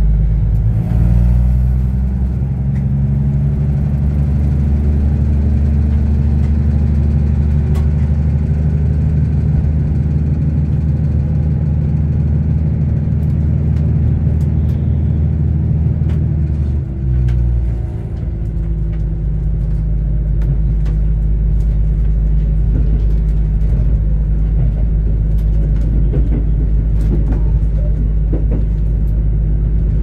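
Diesel railcar engine of a KiHa 85 limited express heard from inside the cabin, revving up under power as the train accelerates and then pulling steadily. About 17 seconds in the engine note drops and briefly dips as the hydraulic transmission changes stage, then it runs on at a lower steady pitch, with occasional light clicks over it.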